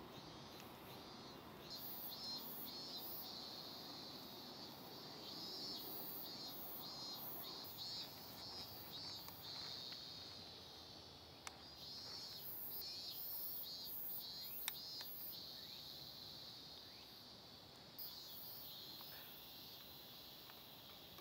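Insects calling outdoors in rapid, pulsing high-pitched trills that swell and fade, with a few small sharp clicks in the middle.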